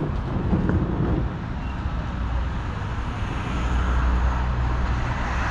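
Roadside traffic noise, with a vehicle's low engine rumble growing louder from about halfway through.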